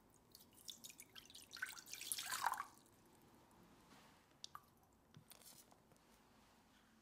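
Water poured into a small stainless steel saucepan, splashing for about two and a half seconds before it stops. A few faint drips follow as agave syrup falls into the water.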